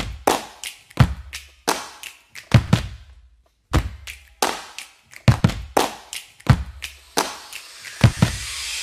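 A series of sharp knocks, each with a short low boom, coming irregularly about one or two a second, with a pause about three seconds in. A rising hiss swells over the last second.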